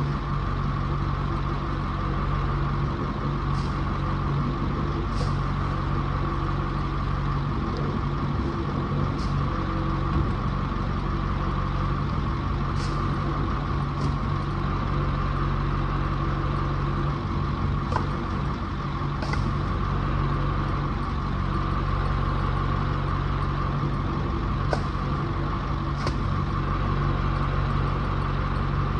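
A vehicle engine running steadily at constant speed, with a dozen or so brief sharp clicks scattered through it.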